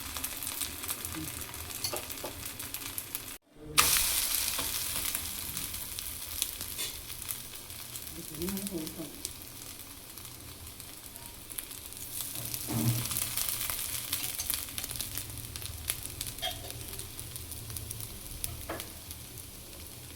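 Dosa batter sizzling in sesame oil on a hot dosa tawa, a steady frying hiss. It cuts out for a moment about three and a half seconds in and comes back louder.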